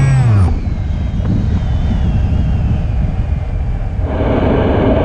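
The electric motor and propeller of an E-flite Opterra flying wing wind down and cut out in the first half second, the throttle being pulled off. Then only the rush of wind is heard as the plane glides, and the rush grows louder about four seconds in.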